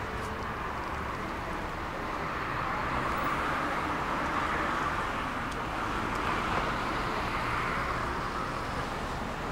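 Tram in motion: steady running and rolling noise, a little louder through the middle and easing slightly near the end.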